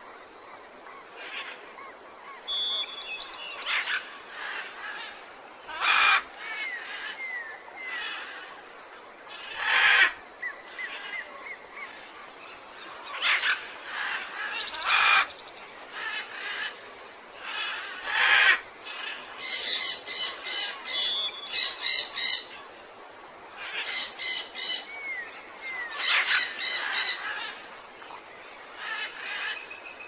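Steady rush of a small rocky forest stream with birds calling over it: several loud harsh squawks spaced a few seconds apart, short curling whistled notes, and about halfway through two bouts of fast repeated chattering notes.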